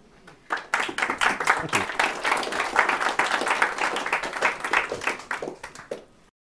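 Audience applauding after a talk ends: many hands clapping, starting about half a second in, tailing off and then cut off near the end.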